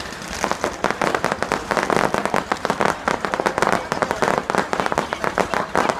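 Fireworks crackling: a dense, rapid run of sharp pops and cracks, many per second and fairly even in loudness.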